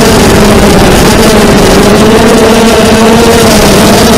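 A 250-size FPV racing quadcopter's motors and propellers buzzing loudly, heard from its onboard camera, the pitch wavering up and down with the throttle.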